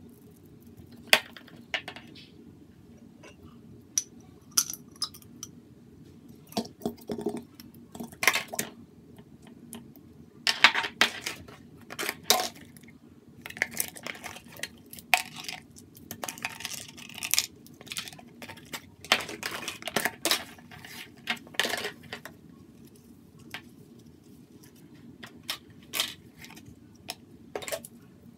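Irregular clicks, knocks and scrapes of plastic slime tubs handled against a plastic bowl, with squelches of slime being squeezed out by hand.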